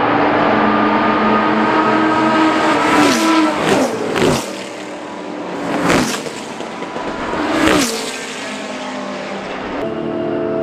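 A group of classic sports-prototype race cars passing at full throttle one after another, about five in a row. Each engine note drops in pitch as the car goes by.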